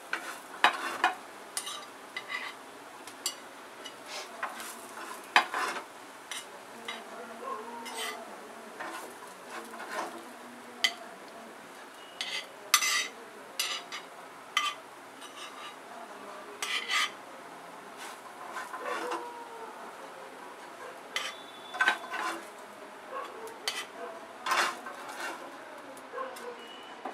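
Metal spatula clinking and scraping against a flat griddle (tawa) and a plate as fried potato patties are lifted off and set down, in irregular short strokes through the whole stretch.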